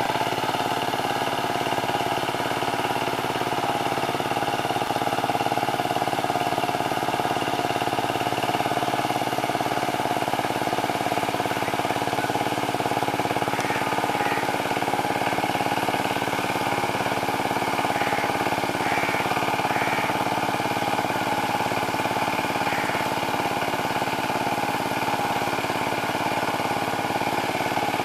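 Kamco power tiller's single-cylinder diesel engine running steadily under load while puddling a flooded rice field.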